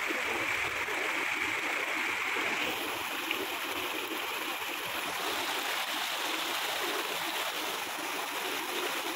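Shallow, rocky mountain stream rushing steadily over stones.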